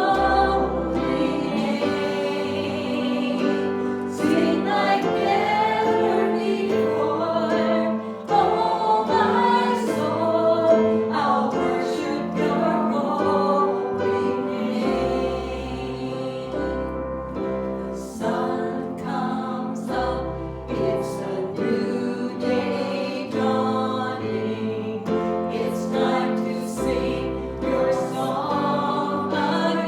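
Church worship music: a group of voices singing a gospel-style song with instrumental accompaniment, including deep bass notes.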